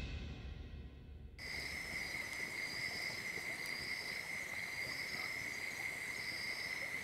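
Night insects calling. One keeps up a steady high trill, and a second, higher one pulses roughly once a second. It comes in abruptly about a second and a half in, as fading music dies away.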